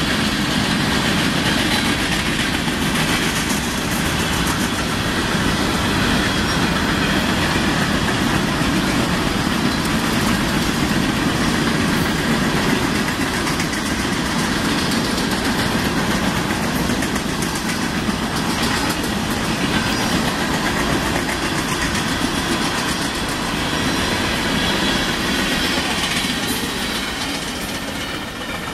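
Union Pacific grain train's covered hopper cars rolling past at speed: a steady noise of steel wheels running on rail.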